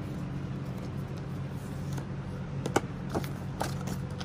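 White cardboard packaging of an Apple Watch band being unfolded by hand: a few sharp crinkles and taps in the second half, the loudest a little before three seconds in, over a steady low hum.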